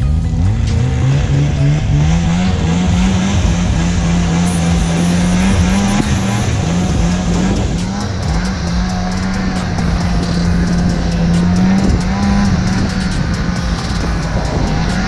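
Snowmobile engine pulling a towed sled: it revs up over the first few seconds, then runs at high, fairly steady revs that waver now and then. A steady rushing hiss lies underneath.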